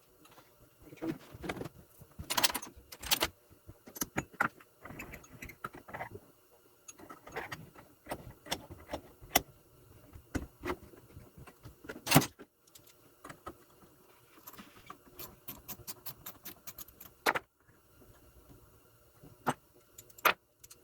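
Irregular clicks, clinks and taps of small metal engine parts and hand tools being handled as a small generator engine's carburetor is put back together, with a sharper knock about twelve seconds in and another near seventeen seconds.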